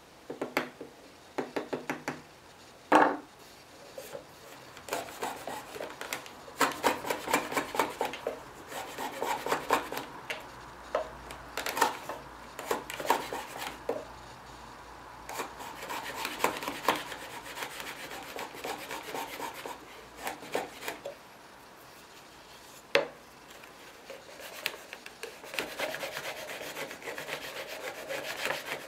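Shop-built long-based wooden hand router plane worked in repeated short strokes, its cutter scraping and paring wood out of a recess in the end of a board. A few sharp knocks near the start, the loudest about three seconds in.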